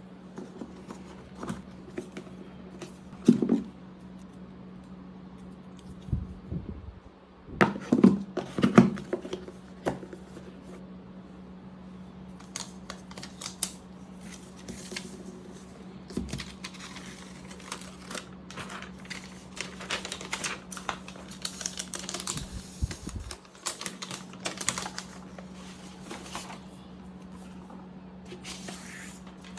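Hands handling a new MacBook Air and its packaging: scattered light clicks, taps and rustling, over a steady low hum.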